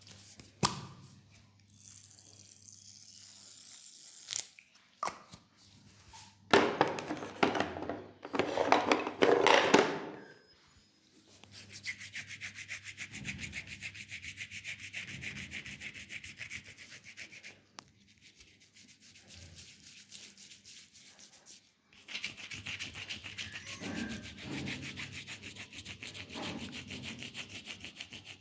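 Leg massage on skin: rough, irregular rubbing, loudest in the first third, then two long runs of fast, even rubbing strokes over the leg.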